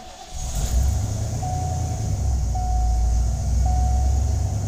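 A 1990 Ford Bronco's engine starts and runs at a steady idle. Over it, a single-tone chime beeps about once a second.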